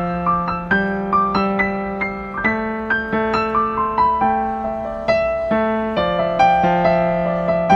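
Piano music: a gentle melody of single notes, each struck and fading, over held low notes, several notes a second.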